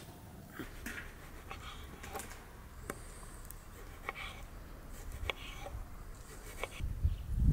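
Knife slicing tomatoes on a wooden cutting board: sharp, separate taps about a second apart as the blade meets the board. A low rumble near the end.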